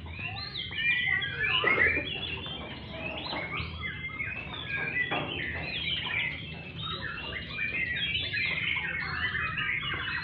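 Several caged white-rumped shamas (murai batu) singing at once, a dense overlapping chorus of quick chirps and warbled phrases with no pause.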